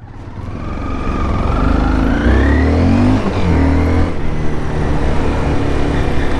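Motorcycle engine pulling away and accelerating. The pitch rises, falls back once about three seconds in as it shifts up, then the engine runs steadily.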